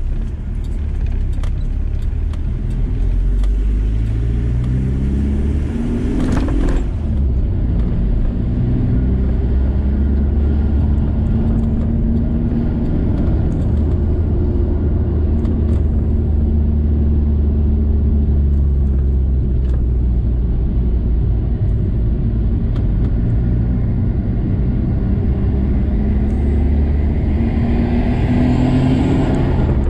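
VW T4 campervan engine and road rumble while driving. The engine pitch climbs as it accelerates in the first few seconds, holds steady while cruising, and climbs again near the end.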